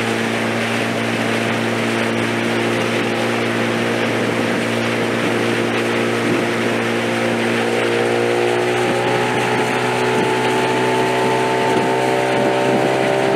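Motorboat's outboard engine running steadily under way, over a rush of wind and water; its pitch rises slightly about two-thirds of the way through.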